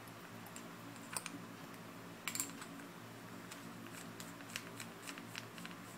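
Faint, scattered small clicks and taps of a vape atomizer's metal parts being handled and twisted in the fingers, the clearest about a second in and just past two seconds, with a low steady hum underneath.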